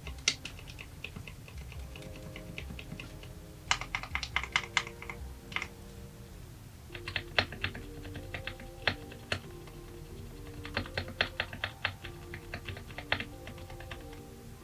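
Typing on a Drop Alt mechanical keyboard with Kailh Speed Silver linear switches: rapid runs of key clicks in several bursts with short pauses between them.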